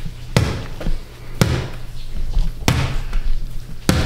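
A small rubber basketball bouncing on a hardwood floor as it is dribbled: four loud bounces about a second apart, with a few softer knocks between them.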